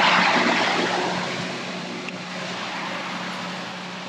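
Grain auger running on its electric motor as it loads corn, a steady hum under the hiss of grain pouring, growing fainter over the first two seconds.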